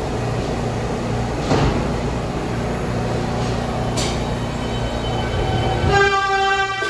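New York City subway train rumbling in the station, with two short knocks, then near the end its horn sounds, one steady pitched blast that carries on.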